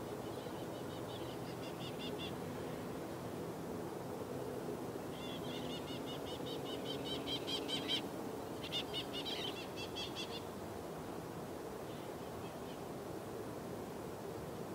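Steady, distant hum of the Antonov An-124's four D-18T turbofan engines as the freighter moves along the runway. A bird's rapid chirping trills sound over it in several bursts, loudest near the middle.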